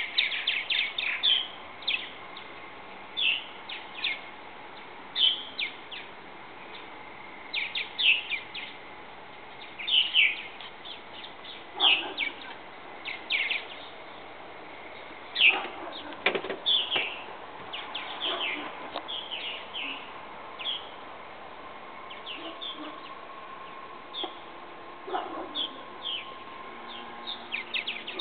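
Purple martins chirping around their nest house: many short, sharp calls, some coming in quick clusters.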